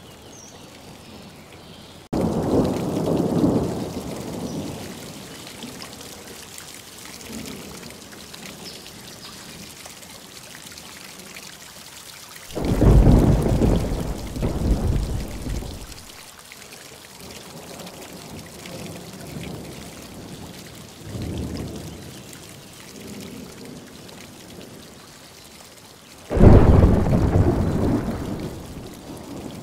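Steady rain with four rolls of thunder: a sudden clap about two seconds in that rumbles away over a few seconds, a loud rumble around the middle, a fainter one later, and another sharp clap near the end.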